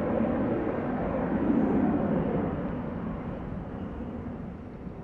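Yakovlev Yak-130 jet trainer's twin turbofan engines in flight, a steady jet roar. It swells to its loudest about one and a half seconds in, then fades over the last few seconds.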